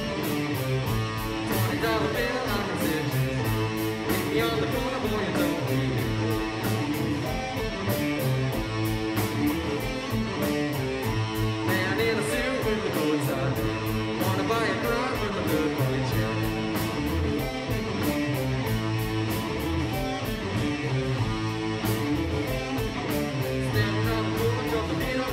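Live rock band playing: electric guitars, bass guitar and drum kit, with the drums keeping a steady beat.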